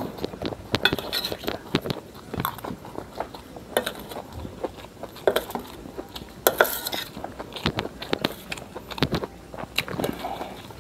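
Metal spoon and fork clinking and scraping irregularly on a stainless steel plate while gathering fried noodles, with chewing in between.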